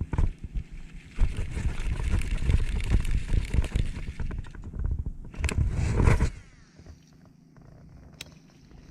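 Rustling, scraping handling noise that drops away about six and a half seconds in, followed by a single sharp click near the end.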